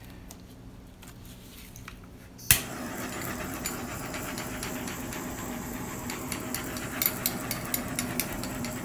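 Handheld butane torch clicking on about two and a half seconds in, then a steady hiss of flame with scattered sharp crackles, passed over freshly poured epoxy resin to pop its bubbles.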